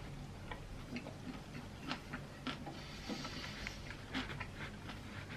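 A person chewing a mouthful of chicken wrap with lettuce: soft, irregular wet clicks and smacks of the mouth, several a second.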